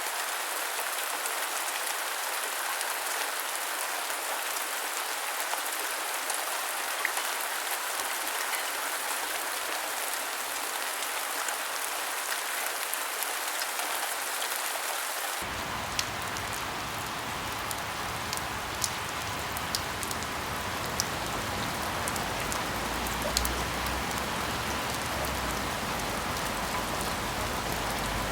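Steady rain falling: a dense hiss with scattered sharp ticks of individual drops. About halfway through the sound shifts suddenly as a low rumble comes in underneath.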